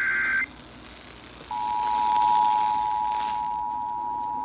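Emergency Alert System tones over radio. A shrill two-tone EAS digital header burst cuts off about half a second in. After a second's pause, the EAS two-tone attention signal (853 and 960 Hz sounding together) starts about a second and a half in and holds steadily, the signal that an alert message follows.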